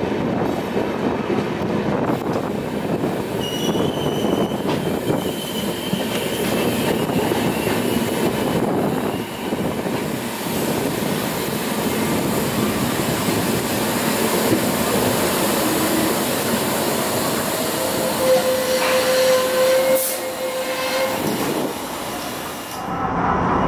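Passenger train running on the track: a steady rumble and rattle of wheels on rail. A thin high-pitched wheel squeal comes in a few seconds in and lasts about three seconds, and a steady lower tone is held for about three seconds later on.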